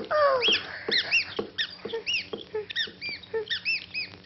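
Cartoon mice squeaking: a quick string of short, high squeaks, about three or four a second, each rising then falling in pitch, opening with one longer squeak that slides down.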